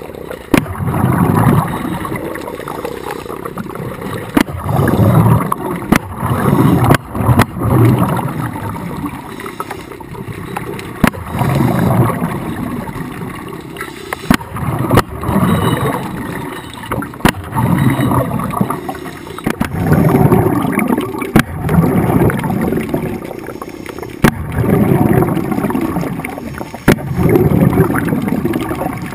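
Air bubbles rushing and gurgling underwater in repeated low bursts, about one every two to three seconds, with sharp clicks scattered between them, recorded through an underwater camera housing during a scuba dive.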